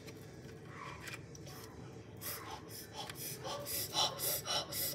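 A boy huffing quick breaths in and out through an open mouth, trying to cool a mouthful of food that is too hot. The breathy puffs start about two seconds in and come several times a second.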